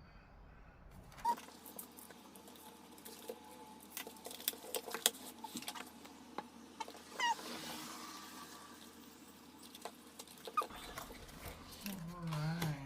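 Packaging being handled while a phone charger is unboxed: scattered sharp clicks and taps with scratchy rustling of cardboard and plastic.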